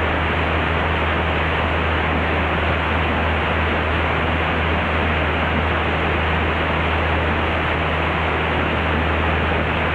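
Cockpit noise of a Mooney M20C in flight: the steady drone of its four-cylinder Lycoming engine and propeller under a constant rushing of air.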